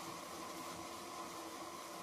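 Steady hiss of a gas stove burner heating a pot of simmering sugar syrup, with a faint steady hum.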